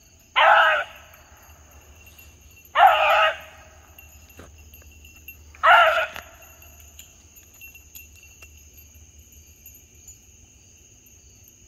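A beagle bays three times, short ringing bawls a couple of seconds apart, as it runs a rabbit's scent trail. Insects trill steadily in the background.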